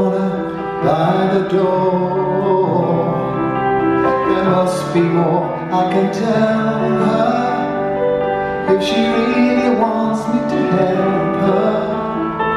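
Live slow piano ballad: a keyboard passage of held notes with accompaniment and no words sung.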